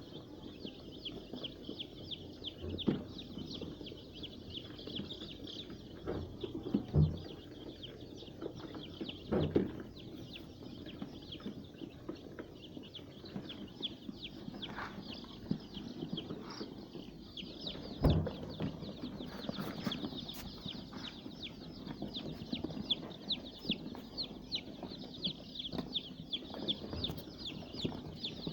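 A brood of five-day-old layer chicks peeping continuously, many high chirps overlapping, with a few dull knocks about three, seven, nine and eighteen seconds in.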